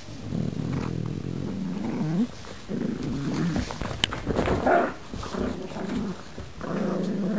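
Pugs growling in play while tugging over a plush toy, in long rumbling runs with short breaks.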